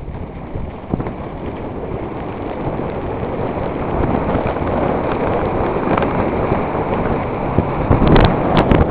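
Wind buffeting the microphone over the rumble and crunch of mountain bike tyres rolling on a loose gravel and dirt trail, growing louder. A few sharp knocks near the end as the bike rattles over bumps.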